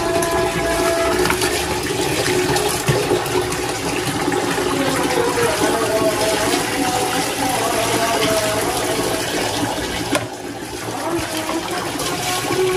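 Water running and splashing steadily, dropping a little in level about ten seconds in.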